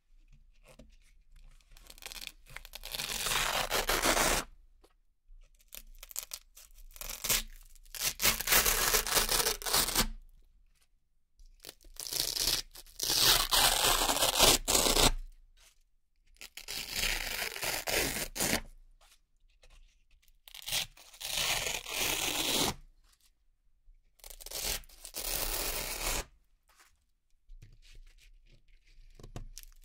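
Round hook-and-loop (Velcro) patches slowly peeled off a Velcro-covered board: a crisp, crackly ripping. It comes in about six drawn-out peels of two to three seconds each, with short pauses between them.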